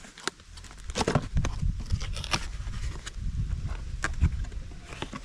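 Handling of a boxed winch-line kit: a quick run of knocks, clicks and rustles that starts about a second in.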